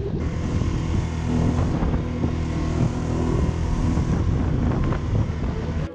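Wind buffeting the microphone over a boat's motor running steadily on choppy water.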